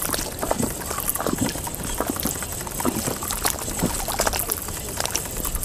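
Wind-driven waves splashing and lapping at the water's edge: an uneven wash of small splashes with no steady tone.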